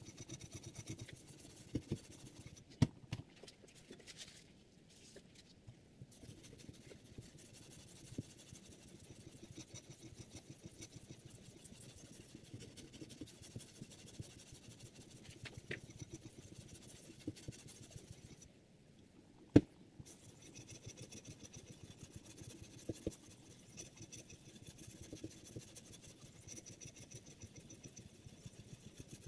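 Sharpening stone on the guide rod of a Hapstone R2 guided knife sharpener, stroked rapidly back and forth along a clamped knife blade: a faint run of scraping strokes that pauses twice. There are a couple of sharp clicks, the loudest just after the second pause.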